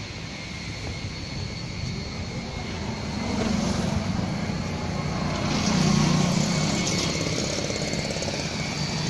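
Hindustan Contessa's engine running, heard from beneath the car by its exhaust; the low hum grows louder about three and a half seconds in and again around six seconds.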